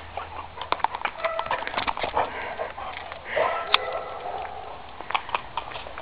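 Quick, irregular clicks and taps of a Redbone Coonhound's claws and paws on asphalt as she moves around.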